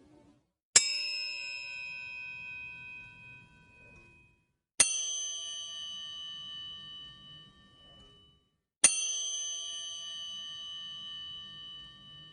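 'Chiin' bell sound effect: a small bell struck three times, about four seconds apart, each strike ringing out and fading over about three seconds. The first strike is a little lower in pitch than the other two.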